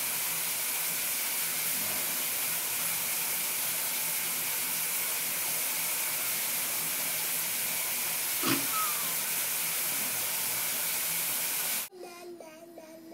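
Shower running: a steady hiss of water spray, with one short knock about eight and a half seconds in. The spray cuts off abruptly near the end.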